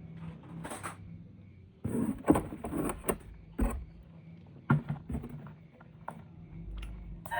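Toy vehicles and their packaging being handled: a run of short plastic clicks, knocks and rustles starting about two seconds in, over a faint low hum.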